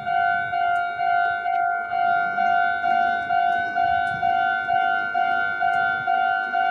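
Japanese railway level crossing's electronic warning bell ringing, one pitched tone repeating about twice a second without a break.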